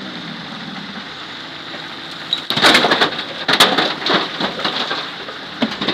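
Wet earth, stones and brush pouring from a loader's bucket into a steel dump-truck bed. A loud rush of falling dirt with clattering knocks from stones and debris starts about halfway through and tails off into a few scattered thuds near the end.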